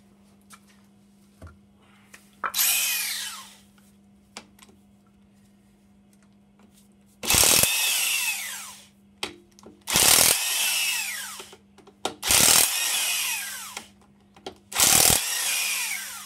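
Impact wrench run in five short bursts on engine bolts, each with a whine that falls in pitch as it runs down.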